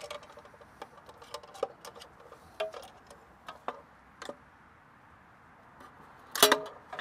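Small metallic clicks and taps from a screwdriver and hands working on a sheet-metal AC disconnect box, with one louder metal clank that rings briefly about six and a half seconds in.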